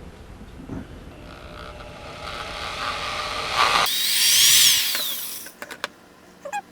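Power drill running, its pitch rising and falling as the trigger is squeezed and eased, loudest about four seconds in, then several sharp clicks near the end.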